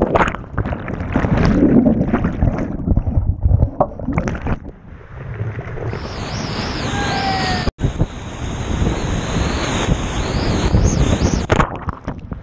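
Whitewater rapid rushing and splashing over the camera's microphone as a kayak runs through it, with water washing over the camera at times. The sound cuts out for a moment about two-thirds of the way through.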